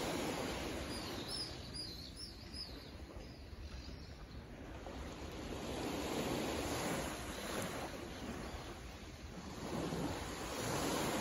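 Small waves of a calm sea washing against shoreline rocks, swelling and easing every few seconds. A bird chirps a quick run of about five notes about a second in.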